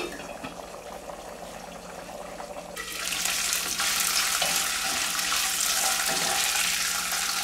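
Chulpe corn kernels frying in hot oil in an aluminium pot, a steady sizzling hiss. It is muffled under the lid at first, then turns suddenly louder and brighter about three seconds in, when the pot is uncovered.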